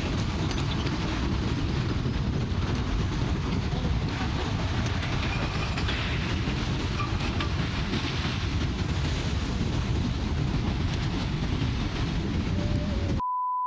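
Debris flow of mud and rocks rushing down a channel: a steady, heavy low rumble and rush. Near the end the sound cuts out briefly for a short beep tone.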